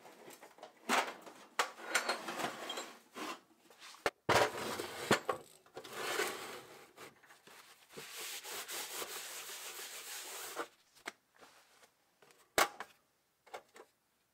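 Rusty steel tool box being slid and handled, with scrapes and knocks, then a towel rubbed back and forth over its metal lid for a couple of seconds, followed by a few sharp clicks near the end.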